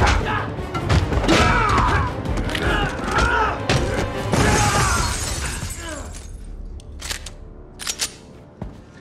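Hand-to-hand fight sound effects over dramatic music: men grunting with punches and thuds. About four and a half seconds in there is a hissing crash, then it quiets down to a few sharp clicks near the end.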